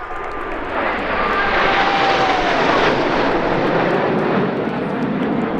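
Red Arrows' BAE Hawk T1 jets passing fast and low: a rush of jet noise that swells over about two seconds with a falling whine, then slowly eases off.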